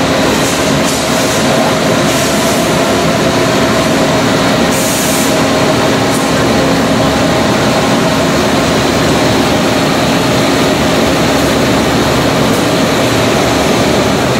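Steel coil processing line running, with strip unwinding off the coil and feeding the cluster leveler: a loud, steady mechanical rumble with a constant hum. A short hiss sounds about five seconds in.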